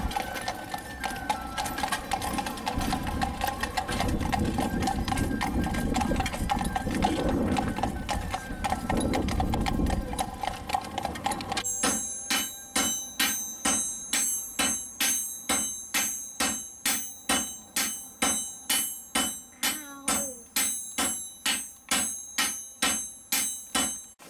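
Blacksmiths hammering red-hot iron on an anvil, with a sledgehammer in use: a steady run of sharp metal-on-metal strikes, about two a second, each ringing high. Before that, a low steady street rumble where a horse-drawn carriage is passing.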